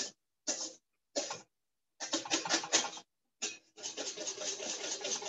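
Wire balloon whisk beating hollandaise sauce in a metal bowl: quick, rhythmic scraping strokes, about five a second, in several short spells with brief pauses between.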